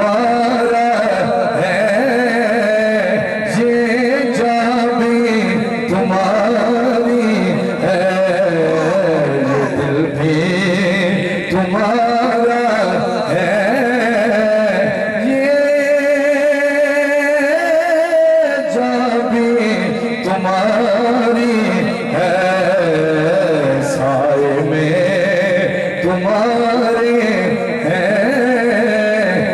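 A man singing a naat, a devotional poem in praise of the Prophet Muhammad, into a microphone. It is one voice in a slow, ornamented melody with long held notes, and about halfway through he holds a single note for about three seconds.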